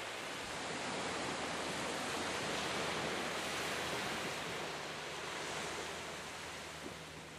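Small waves washing onto a sandy beach: a steady hiss of surf that swells gently and eases off.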